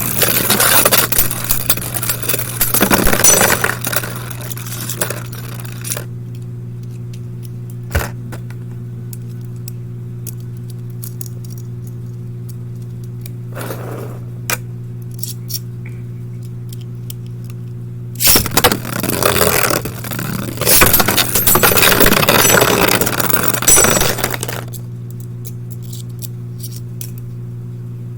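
Beyblade Burst tops spinning and clashing in a plastic stadium: scraping with sharp clinks, in two bouts of about six seconds, the first at the start and the second from about eighteen seconds in, with a few single clicks between. A steady low hum runs underneath.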